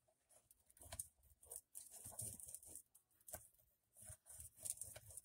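Faint rubbing and rustling of paper with a few soft taps: hands burnishing glued-down patterned paper onto a cardboard box panel.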